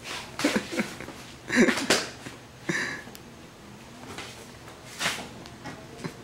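A man's short bursts of laughter and breathy sniffs, four separate outbursts with pauses between them.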